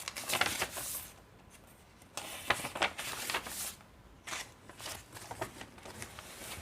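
Paper pages and inserts of a handmade junk journal rustling and crinkling as they are handled and turned, in three spells with short pauses between.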